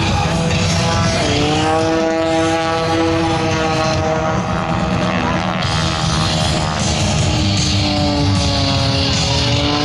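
Aerobatic propeller plane's engine running hard in a low pass. Its pitch steps up about a second in, holds, and drops a little near the end, over loud music.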